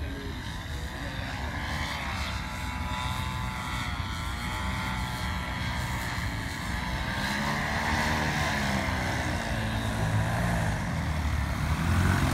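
Paramotor engine and propeller running steadily, its pitch rising and falling and the sound growing louder as it comes in close to land.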